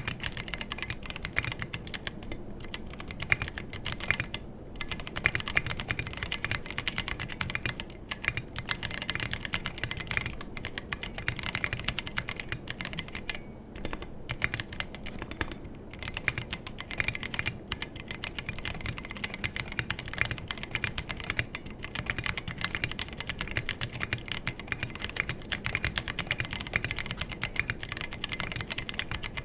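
Fast, continuous typing on a 60% mechanical keyboard with stock Halo True tactile switches, a brass plate, no foam and SA-profile PBT keycaps, set on a bare desk without a deskmat. The keystrokes run in dense clicks and clacks with a few brief pauses.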